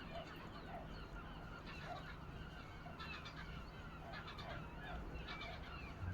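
Birds calling, many short overlapping calls one after another, over a steady low rumble.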